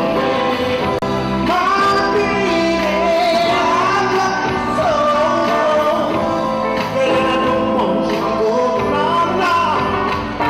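A live soul band playing, with a man singing lead into the microphone while he plays guitar. His melody rises and falls over a steady beat, in a large hall.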